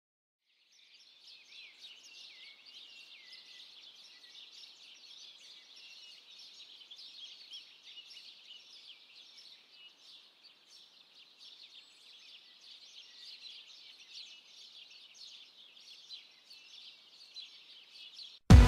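A chorus of many small birds chirping together in quick, overlapping high calls. It cuts off abruptly near the end.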